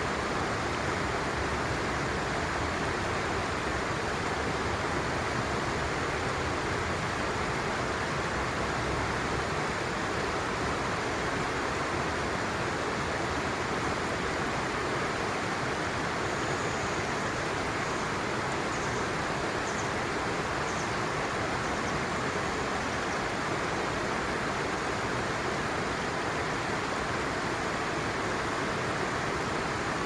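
Shallow stream running over stones: a steady, unchanging rush of water.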